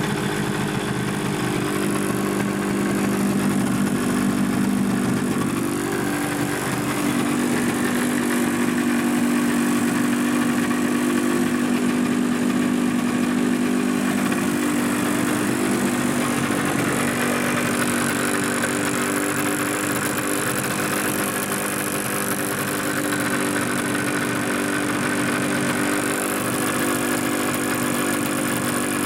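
Suzuki GP100 single-cylinder two-stroke disc-valve engine running steadily on a test stand, a bit rough, its speed shifting slightly a couple of times. The rattle from the hot engine is taken by the owner to be piston slap as the clearances grow.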